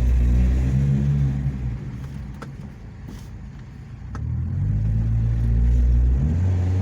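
Second-generation Kia Sportage engine revved twice while standing, with its exhaust cutout open so the exhaust sounds loud and fierce. Each rev is held for about two seconds, then drops back to idle.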